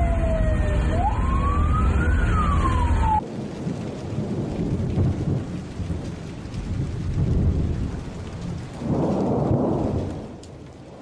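A siren wailing down, up and down again over a deep rumble, cut off suddenly about three seconds in. After it comes a steady noisy rumble with no tone, swelling for about a second near the end.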